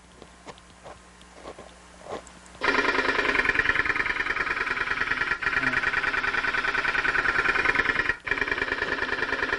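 Demonstration recording of a moving-coil loudspeaker whose voice coil strikes the backplate on every cycle of the test signal, played back in the room. It comes in about two and a half seconds in as a loud, fast, clattering buzz like a sewing machine, with a short break near the end. The sound is the sign of the coil bottoming out against the backplate, an impulsive irregular distortion.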